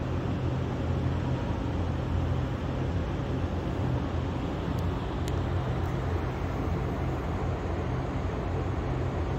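Steady low rumble of outdoor city traffic noise, with two faint clicks about five seconds in.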